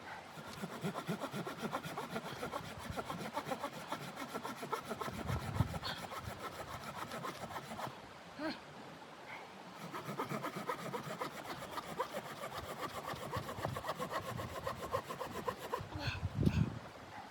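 Hand saw cutting through wood in quick rasping strokes, in two long bouts with a short pause between them and a couple of dull thumps.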